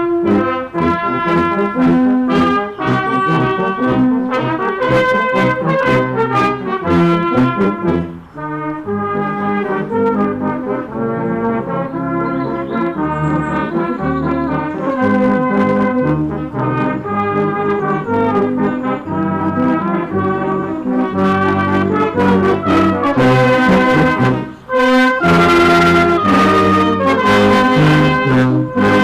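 Brass music: several brass instruments playing a tune together, with brief breaks between phrases about 8 and 24 seconds in.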